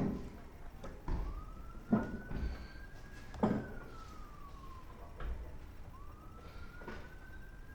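A distant emergency-vehicle siren wailing, slowly rising and falling in pitch over several seconds. A few sharp metal knocks, louder than the siren, come from work under the mower deck.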